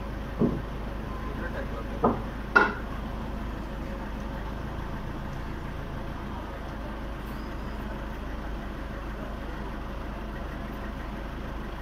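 Engine of a small crane truck idling with a steady low hum, with three sharp knocks in the first few seconds, the last the loudest.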